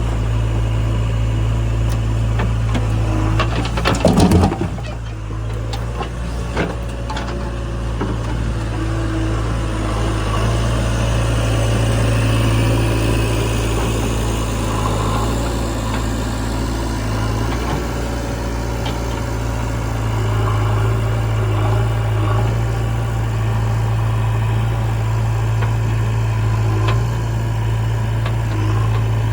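Diesel engine of heavy machinery running steadily with a low hum, with a short, loud clatter about four seconds in and a few knocks just after.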